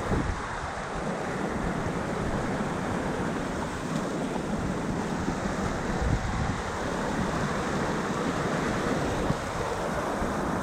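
Steady rush of a river flowing fast just below a waterfall, with wind buffeting the microphone in a low, uneven rumble.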